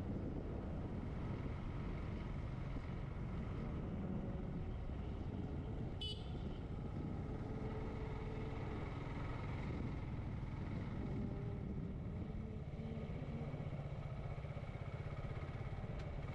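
Motorcycle engine running steadily while riding, with road and wind noise, heard from a camera on the rider's helmet. A brief high-pitched chirp about six seconds in.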